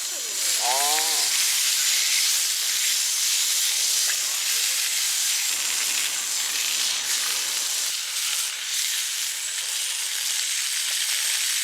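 Food sizzling steadily as it cooks on a hot pan or grill, with a brief voice near the start.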